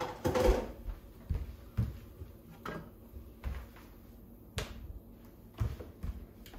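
Scattered light knocks and clicks of kitchen handling, roughly one a second, after a short, louder noise at the very start.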